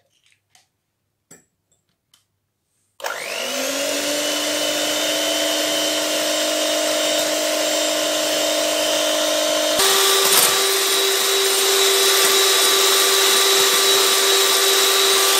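Electric hand mixer beating eggs in a glass bowl: the motor starts about three seconds in with a rising whine, runs steadily, then steps up to a higher speed about ten seconds in. A few small clicks come before it starts.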